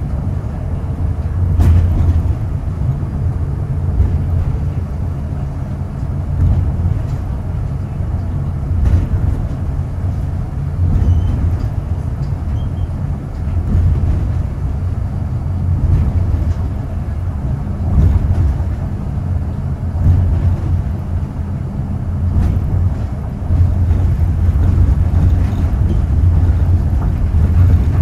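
Osaka Metro Nanko Port Town Line (New Tram) rubber-tyred automated train running along its elevated concrete guideway, heard from inside the car: a steady low rumble that swells every few seconds.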